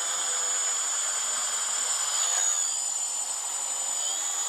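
Gaui 330X-S quadcopter's four electric motors and propellers whirring as it lifts off and hovers low, with a steady high whine. The pitch swells and shifts about halfway through as the motors change speed.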